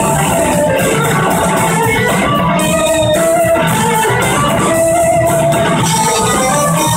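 Live band music led by electric guitar, with lead lines of long held notes over the rest of the band.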